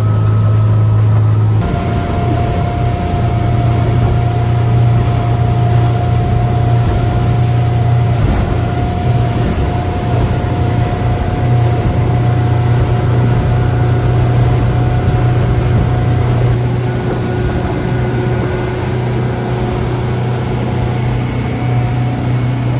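Honda 250 hp four-stroke V6 outboard running steadily at cruising speed, with water rushing along the hull and wake. The sound shifts abruptly about two seconds in, then holds steady.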